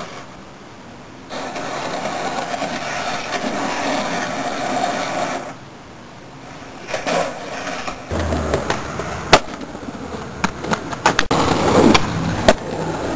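Skateboard wheels rolling over hard ground, then from about halfway on the sharp clacks and knocks of the board popping and landing, several in quick succession.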